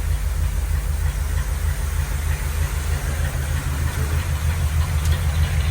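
1948 Ford Pilot's flathead V8 engine idling steadily with an even, low pulsing beat.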